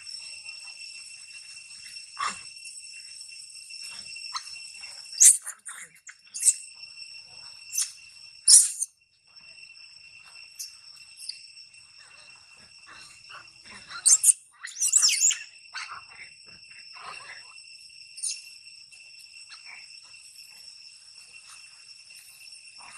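Steady high-pitched drone of insects in the grass, with short shrill shrieks from long-tailed macaques breaking through in two clusters, around five to nine seconds in and again around fourteen to sixteen seconds in.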